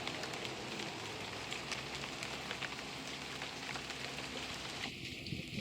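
Light rain falling, an even hiss scattered with many small drop ticks.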